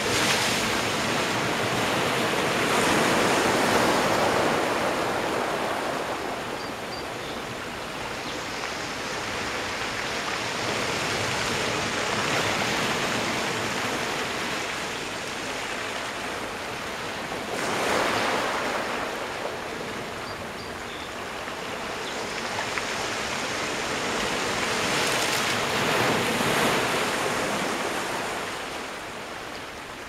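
Atlantic surf breaking against rocks and washing back over them. It rises and falls with each breaker: a wave bursts on the rocks right at the start, another hits sharply a little past halfway, and the wash swells again near the end.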